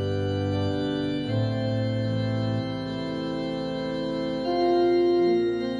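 Organ playing a slow run of held chords, changing chord a few times, as an interlude between verses of a hymn.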